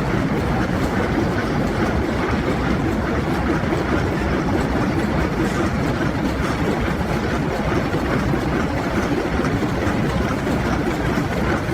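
Heavy industrial machinery running: a steady, even rumbling noise with no distinct beat or pitch.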